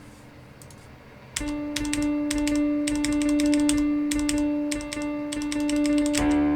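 Piano notes played from a computer keyboard, with the clacking of the keys heard over the piano tones. The notes start about a second and a half in as one held note, and a fuller chord with lower notes comes in near the end.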